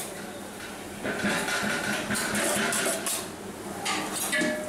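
Metal spatula scraping and turning cooked biryani rice in a large aluminium pot, in a run of short strokes between about one and three seconds in and a few more near the end.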